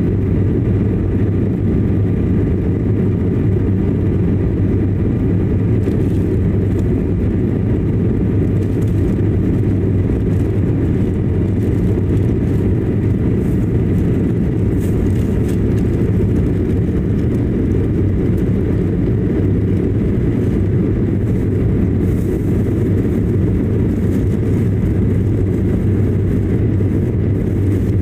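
Steady cabin noise of a jet airliner climbing after takeoff: engines and rushing air, deep and even, with faint steady high whines on top.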